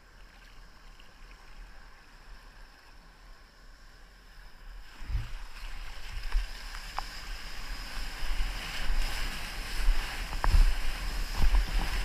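Sea water washing around a kayak. About five seconds in it turns loud: rushing whitewater and wind buffeting the microphone as the kayak surfs a breaking ocean wave, with a few sharp knocks and splashes against the boat.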